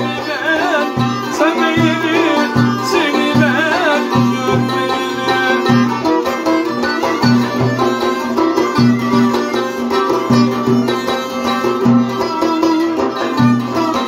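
Live Turkish folk dance tune (oyun havası) played on violin and cümbüş, an ornamented wavering melody over a steady low beat.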